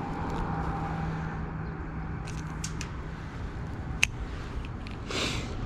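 A single sharp click from a spinning reel being handled, about four seconds in, over a steady low hum; a short hiss follows near the end.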